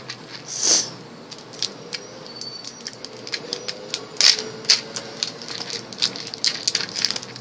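Small candy package being opened by hand: a crinkly rustle of wrapping about a second in, then a run of irregular light clicks and ticks.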